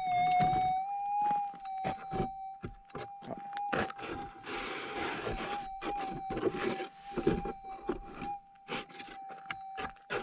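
Minelab SDC 2300 gold detector's steady threshold tone, with small wobbles in pitch, while its coil brushes and knocks over gravel and quartz stones. It gives a run of short clicks and a longer scraping patch about four seconds in.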